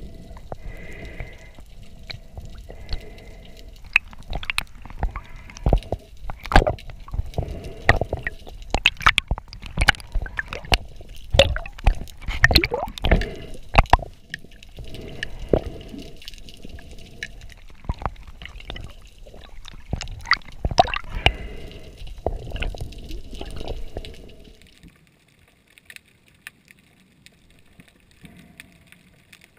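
Muffled underwater sound through a camera housing: irregular clicks and knocks of spearfishing gear and water moving against the housing, over a low rumble, dropping away sharply about 25 seconds in.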